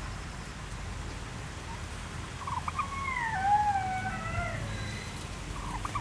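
Domestic turkey calling: one wavering call that glides down in pitch, starting about two and a half seconds in and lasting about two seconds.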